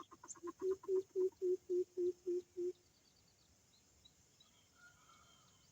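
Greater coucal's deep hooting call: a run of about ten low, even 'boop' notes at about four a second, swelling at first and then stopping a little before halfway. Faint high chirps of small birds follow.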